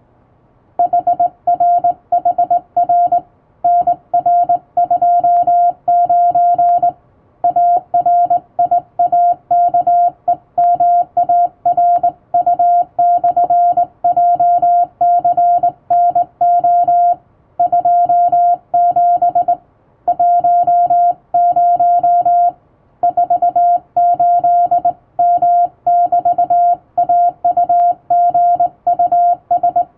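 Morse code sent by hand on a vertical straight key, heard as a steady mid-pitched sidetone beep keyed into dots and dashes of English-letter code, with short pauses between words.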